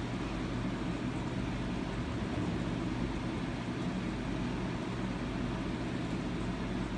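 Steady low hum and hiss of background noise, unchanging, with no distinct events.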